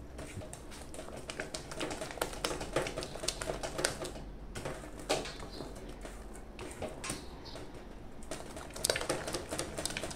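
A silicone spatula stirring a thick, sticky brigadeiro mass of condensed milk, cream and toasted coconut around a pan just taken off the heat, giving many quiet irregular clicks, taps and scrapes as the mass is folded and the spatula touches the pan.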